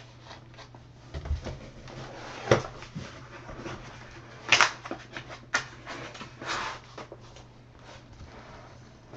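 Irregular knocks, clicks and short rustles from things being handled, the loudest a rustle about four and a half seconds in, over a steady low hum.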